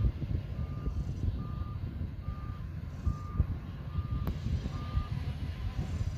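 Bulldozer's diesel engine and tracks running under a reversing alarm beeping a single high tone about once a second; the beeping stops about five seconds in, as the machine stops backing up. A sharp click sounds a little after four seconds.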